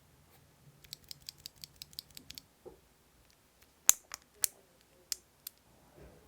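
Typing on a mechanical keyboard with lubed Gazzew Boba U4t tactile switches on an aluminium plate under GMK keycaps: a quick run of about a dozen keystrokes, a short pause, then five slower, louder strokes, the first the loudest.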